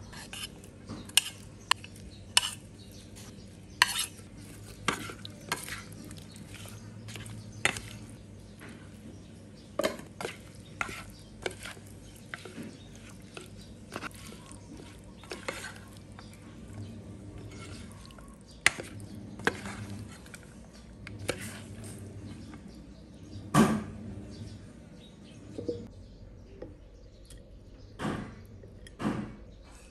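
Black plastic spoon stirring and tossing sliced pork, shallots and herbs in a small nonstick pan, with irregular scrapes and sharp clicks of the spoon against the pan. Near the end come a few taps as the salad is spooned onto a ceramic plate.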